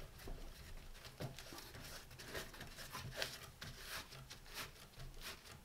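Faint, irregular clicks and scuffs as a stitched cloth polishing mop is handled and worked onto the spindle of a bench polisher that is switched off.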